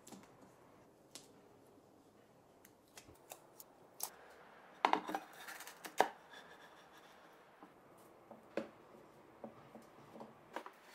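Light handling sounds of woodwork: scattered small taps and scrapes as a wooden board is laid onto a veneered plywood panel and pressed down, with a cluster of sharper knocks about five to six seconds in.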